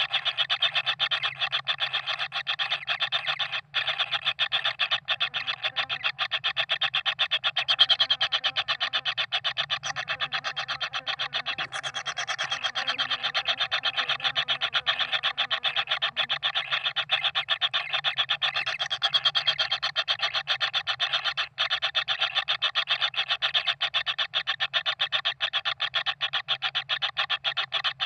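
Kingfisher nestlings giving a continuous, fast rasping buzz. This is the begging call of hungry chicks in the nest.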